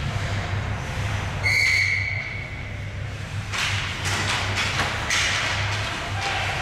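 A whistle blows once, a short steady tone about a second and a half in. From about three and a half seconds in, hockey skates scrape and sticks clack on the ice, over a steady low hum.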